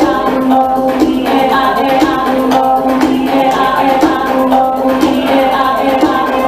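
Music with sung or held melodic notes over a steady percussive beat.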